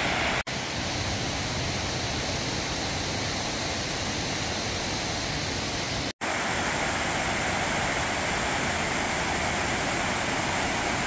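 Steady rush of water pouring over a low concrete dam (a weir spillway). It cuts out for an instant twice, about half a second in and again about six seconds in.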